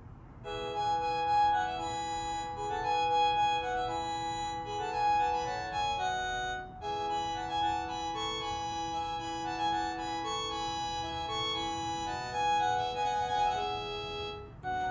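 Panasonic KX-TG9541 cordless handset's speaker playing a polyphonic electronic ringtone melody being previewed from its ringer-tone list. The melody breaks off about six and a half seconds in and a tune starts up again right after.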